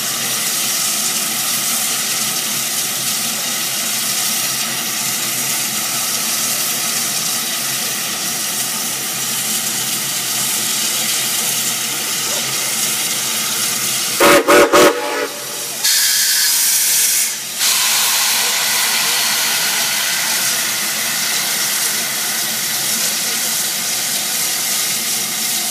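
Santa Fe No. 3415, a Pacific-type steam locomotive, hissing steadily as it moves along the track. About fourteen seconds in, its whistle gives a brief blast, followed shortly by a louder rush of escaping steam that lasts about a second and a half.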